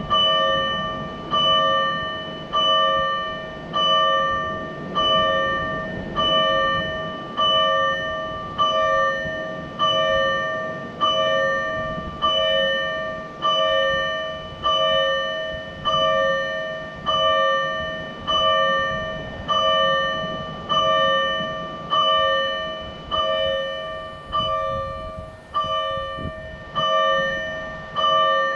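Electronic fire-engine alarm bell (keishō) from a siren amplifier, sounding its slow mode: an even clang about once every 1.2 seconds, each strike ringing out and fading before the next.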